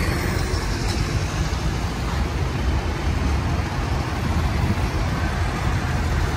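Diesel engines of a line of farm tractors and a passing lorry running in slow street traffic, a steady low rumble.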